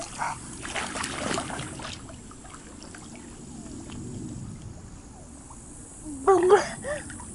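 Pool water splashing and lapping as a child swims through it, with a few sharper splashes in the first two seconds and softer sloshing after. A short burst of voice about six seconds in.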